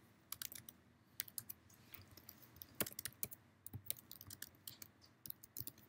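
Faint typing on a computer keyboard: a run of irregular key clicks.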